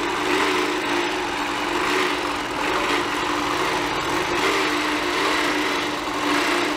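Handi Quilter Moxie long-arm quilting machine running and stitching as it is guided by hand across the quilt: a steady motor hum with the needle working, its pitch wavering slightly as the stitch regulator in precision mode matches needle speed to how fast the machine is moved.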